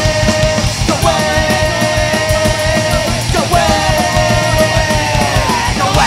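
Pop-punk band music: drums and distorted electric guitars with long held notes.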